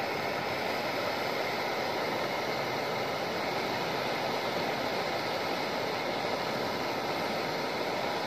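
Handheld gas torch running with a steady hiss of flame while it burns and melts a plastic toy truck.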